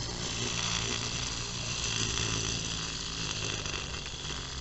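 Clockwork wind-up motor of a Barbie-size toy camcorder running, a rapid steady buzzing whir as the spring unwinds and drives the turning tape reels. It grows slightly fainter near the end.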